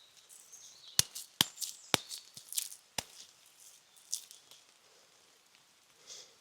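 Four sharp cracks amid crackling and rustling in the first three seconds, then only faint rustles.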